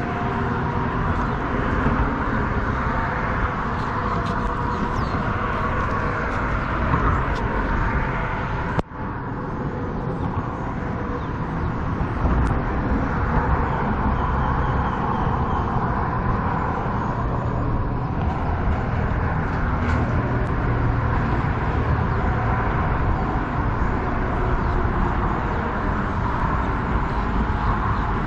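Steady traffic noise from cars going by, a continuous rumble and hiss. It drops out for an instant about nine seconds in.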